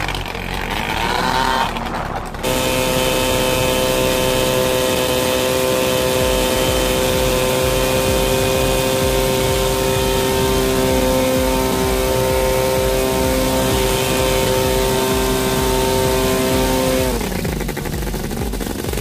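Engine of a homebuilt light aircraft running at a steady speed for most of the time, after a shorter stretch of varying engine noise. Near the end the pitch drops as it slows.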